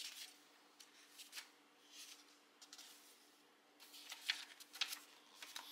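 Paper pages of a paperback book being turned and leafed through: a series of short, crisp rustles and flicks, the loudest bunched together near the end.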